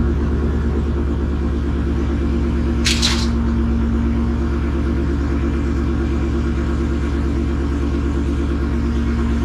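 Ford Lightning pickup's V8 idling steadily through its custom stainless exhaust, now fitted with a mid resonator and flex coupler to cut cab drone, a low rumble that sounds a little deeper. A short hiss about three seconds in.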